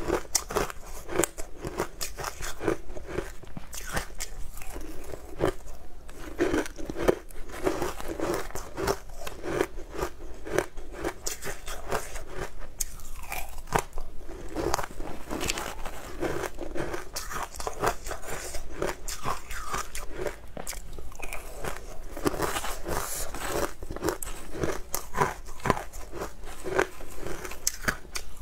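Close-miked crunching and chewing of crushed frozen ice, bite after bite with dense crackling that goes on without pause.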